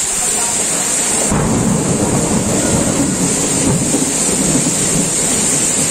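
Heavy rain pouring steadily in a thunderstorm. About a second in, a low rolling rumble of thunder starts and goes on.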